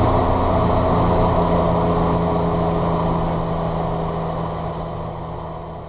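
John Deere 7710 tractor's six-cylinder diesel engine running steadily, growing gradually quieter toward the end.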